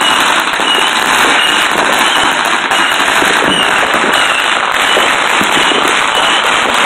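Many firecrackers and fireworks going off at once in a dense, continuous crackling and popping with no let-up. A short high chirp repeats about twice a second underneath.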